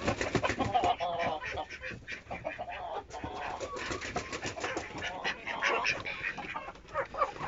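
A mixed flock of hens and ducks calling over one another: hens clucking and ducks quacking in many short, overlapping calls.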